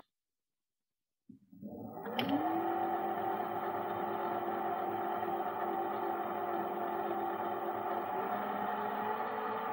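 Benchtop mini metal lathe starting after a second of silence: the motor whine rises in pitch as the spindle spins up, with a click as it starts, then runs steadily. About eight seconds in, the pitch steps up as the spindle speed is turned up.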